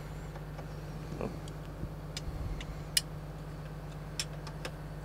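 Knipex Raptor self-adjusting pliers being worked onto a steel fitting: a handful of short metal clicks and taps as the jaws bite and shift, the loudest about three seconds in. A steady low hum runs underneath.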